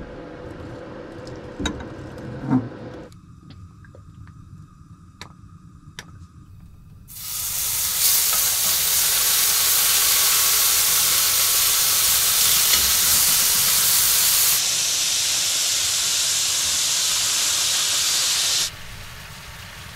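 Pieces of steak searing in hot oil in a cast iron skillet: a loud sizzle starts suddenly about seven seconds in and holds steady, then cuts off abruptly near the end. Before it come only a few light clicks.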